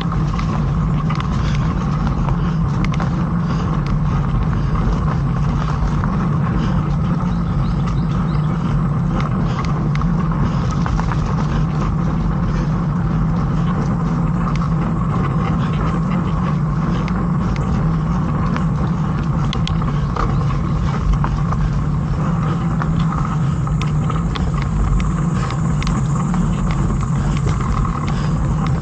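Mountain bike rolling fast over dirt singletrack, heard from a bike-mounted camera: a steady rush of wind and tyre rumble, with the odd small knock and rattle from the bike.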